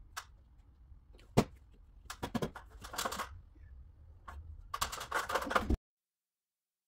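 A single knock, then bursts of light clicking and rattling from small objects being handled. The sound cuts off abruptly to dead silence about two-thirds of the way through.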